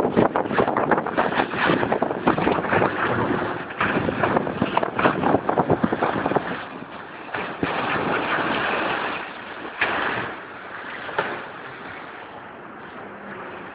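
Wind buffeting the microphone and water rushing and splashing past the hull of a motorboat under way, in irregular gusts. It grows quieter after about ten seconds.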